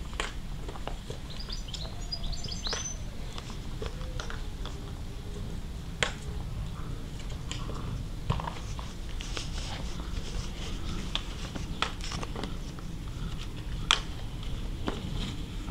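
German shorthaired pointer puppies scuffling and playing on grass: scattered light taps and knocks, the sharpest about six, eight and fourteen seconds in, over a low steady rumble. A few short high chirps sound about two seconds in.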